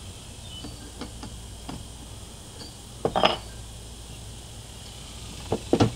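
Light metallic clinks and taps from hands and a tool working on the stopped model glow engine. Two louder clatters come about three seconds in and again near the end.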